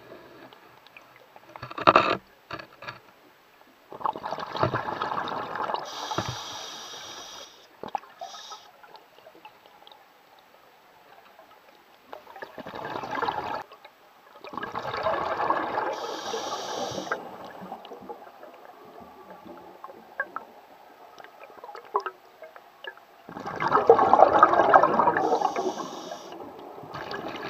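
Scuba diver breathing through a regulator underwater: long bursts of exhaled bubbles about every ten seconds, each with a short hiss from the regulator, and quieter gaps between breaths.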